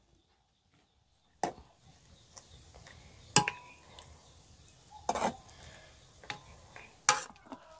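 Metal ladle knocking and scraping against an aluminium pot as greens are stirred in boiling water: about four sharp clinks a second or two apart, starting about a second and a half in, the loudest with a short metallic ring, over a faint hiss from the boiling water.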